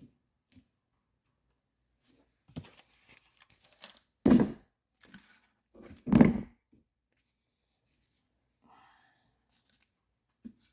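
Two short, loud rustling, tearing-like noises about two seconds apart, among faint small clicks of parts being handled by hand.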